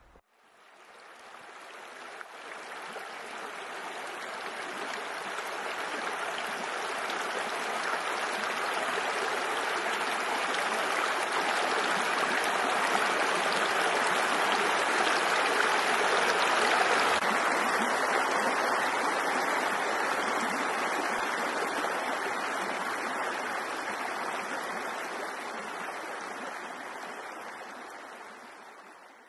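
Shallow stream running over stones, a steady watery rush. It swells in slowly, loses some of its hiss a little past halfway, and fades out near the end.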